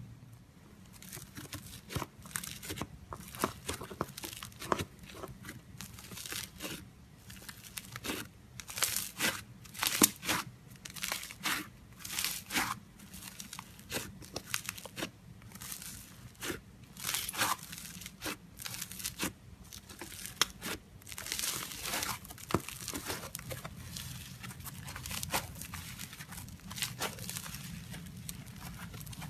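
Slime being squeezed, poked and pulled apart by hand, giving quick irregular crackles, sticky pops and tearing sounds, thickest around the middle and again about three quarters of the way through.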